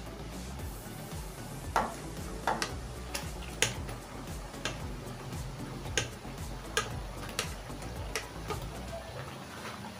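About a dozen sharp clicks and ticks at uneven intervals over soft background music.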